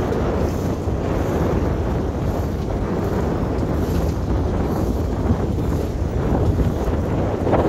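Steady wind buffeting the microphone on the deck of a sailboat under sail, with the rush of sea water along the hull underneath.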